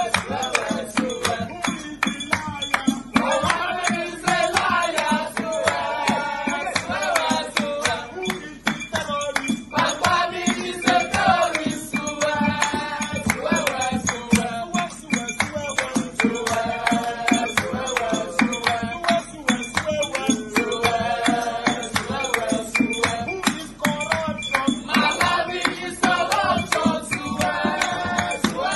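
A group of men singing together over steady hand-clapping.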